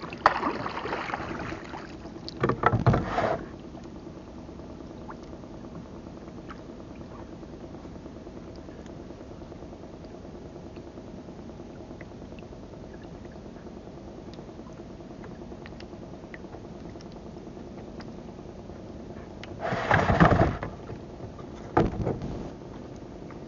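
Small boat engine running steadily with a low hum. A few brief, loud noisy bursts stand out: two in the first three seconds and two near the end.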